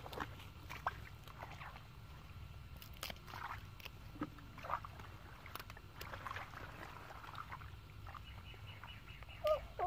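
Hands groping through shallow muddy water and wet leaves: small splashes, sloshes and scattered sharp taps. Near the end comes a short call that bends in pitch.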